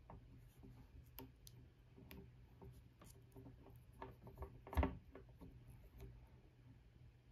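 Faint handling noise of a coiled USB-C charging cable being unwound by hand: scattered light clicks and rubbing of the rubbery cable and its plastic connectors, with one louder tap just before five seconds in.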